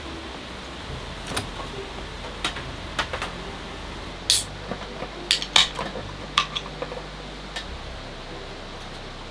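Dishes and utensils clinking and knocking together in a quick irregular series of sharp clicks, over a steady low hiss.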